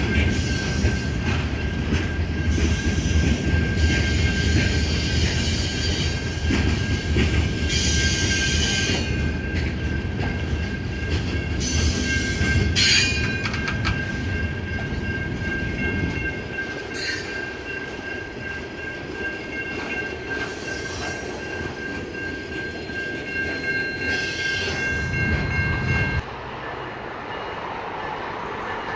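Freight cars of a CN mixed freight train rolling past, wheels rumbling on the rails with a steady high squeal and occasional clanks. The rumble thins out about sixteen seconds in, and the whole sound cuts off abruptly near the end to a quieter background.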